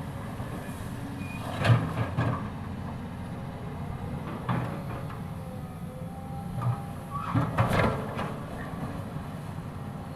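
Cat 320D excavator's diesel engine running steadily under load, with a series of clunks and knocks from the machine at work, the loudest a couple of seconds in and a cluster of them near the end.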